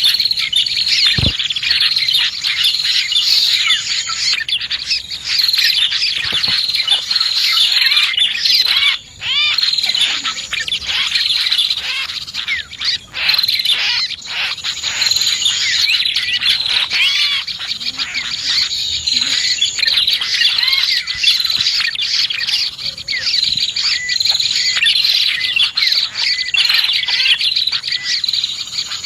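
Dense, continuous chorus of prinias (prenjak) and other small birds chirping and warbling, played as a bird-lure call; a high, even trill comes back every several seconds over the chatter.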